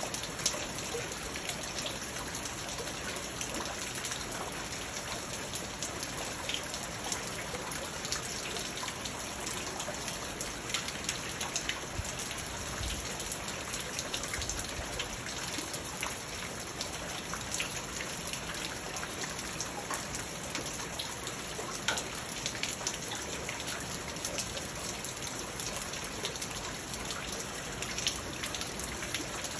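Steady rain falling into a garden pond and onto plants and stones, with many individual drops pattering on the water surface.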